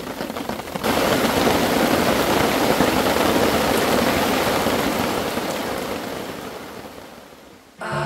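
Heavy rain pouring down: a dense, even hiss that comes in suddenly about a second in and fades away over the last few seconds.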